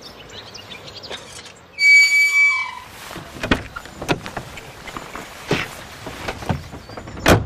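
Car door sounds: a short, loud, high electronic beep about two seconds in, then clicks and knocks as the car door is opened and the car is got into, and the door shutting with a sharp thud near the end.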